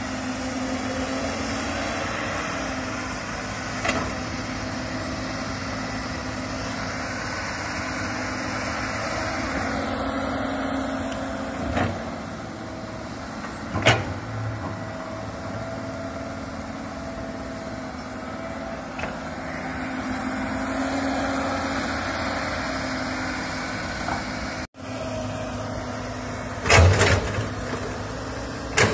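Komatsu hydraulic excavator's diesel engine running steadily under digging work, with a few sharp knocks as the bucket and boom work the soil, the loudest near the end.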